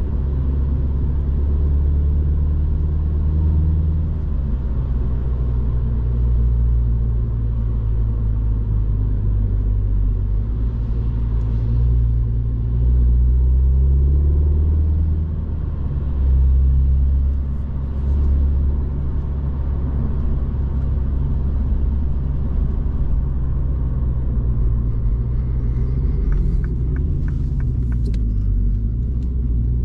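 Mini Cooper S 2.0-litre turbocharged four-cylinder engine cruising at steady speed, heard from inside the cabin, its low hum drifting gently up and down with the throttle over the hiss of tyres on a wet road. A quick run of light ticks comes in near the end.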